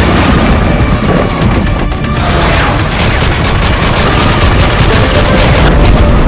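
Loud intro music layered with explosion booms and rapid machine-gun fire sound effects, with a fast run of shots from about halfway in.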